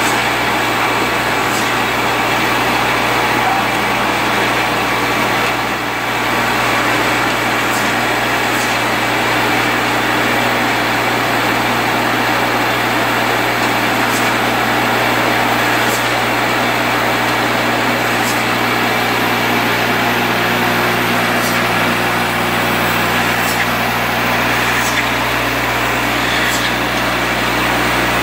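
Vibratory bowl feeder running: a steady hum from its vibrating drive under a dense, continuous rattle of hinge corner keys being shaken around the stainless bowl and out along the feed track, with scattered sharper clicks.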